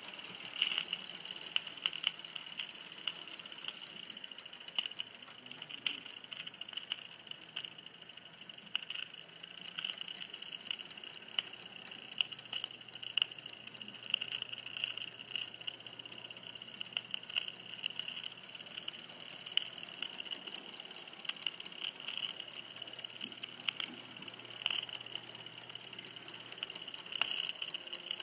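Large-scale model train running along its track: a steady high-pitched hum with many irregular small clicks and rattles.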